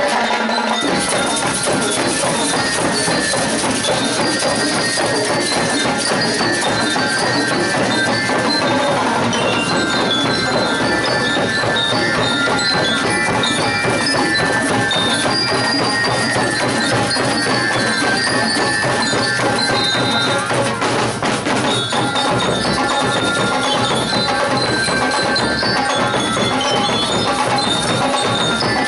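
Marching band playing: snare drums, bass drums and hand drums keep a dense, steady beat while bell lyres ring out a high melody.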